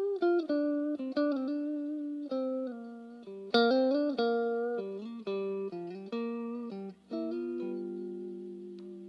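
Tokai Super Edition SD-65s electric guitar played solo: a melodic line of picked single notes, with a wavering bend about four seconds in, then a chord held and left to ring near the end.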